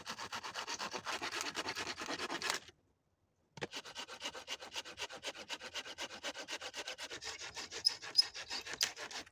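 Folding hand saw cutting through a dead branch in quick back-and-forth strokes, about five a second. The strokes stop dead for about a second near three seconds in, then resume, with a couple of sharper clicks near the end.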